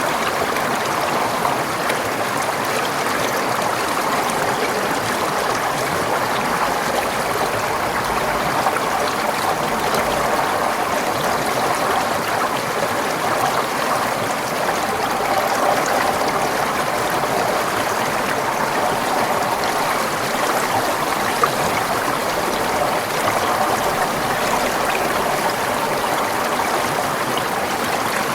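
Forest stream flowing steadily, a continuous rush of water with a trickling, burbling texture.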